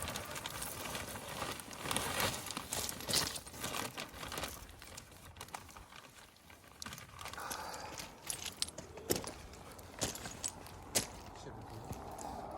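Irregular rustling and crinkling with scattered sharp clicks and knocks, quieter for a stretch about halfway through.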